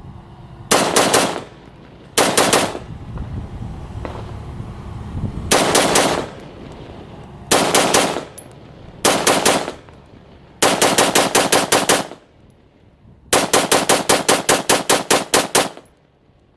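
AR-15-style 5.56 rifle fitted with a VG6 Gamma 556 muzzle brake, fired in quick strings of shots with short pauses between them. The longest string, near the end, runs about a dozen shots at roughly five a second.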